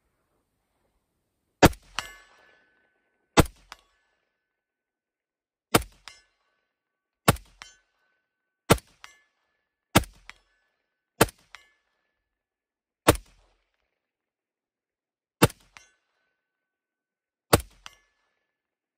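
Ten single rifle shots from an AR-15 (Smith & Wesson M&P 15 Sport II, 5.56 mm) fired one at a time in slow aimed fire, about one to two seconds apart. Most shots are followed by a brief metallic ring.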